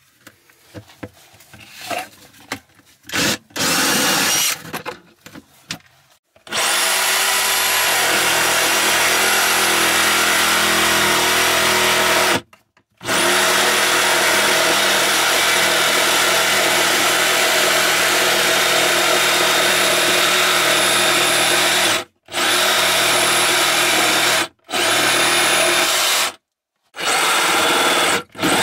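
A few short irregular bursts and knocks, then a Bosch GST 18V-LI cordless jigsaw cutting through a wooden floorboard, its blade depth limited by an offcut. It runs in long stretches with a steady high whine and stops briefly four times.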